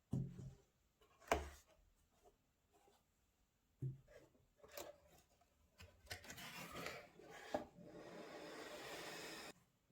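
Packaging of a trainer unboxing being handled: a few soft knocks, then rustling and a steady rub near the end.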